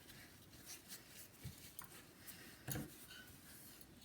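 Near silence with faint handling noises: a few light clicks and rubs, and one slightly louder short knock a little before three seconds in.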